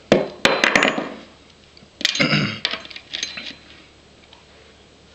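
Sharp clicks and clatter of hard pistol parts and tools being handled and set down, in two short clusters about two seconds apart.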